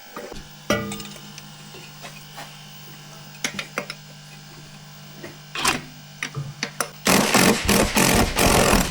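Hand tools working on a car's transmission: scattered metal clicks and knocks over a steady low hum, then about two seconds of loud, rapid mechanical rattling near the end.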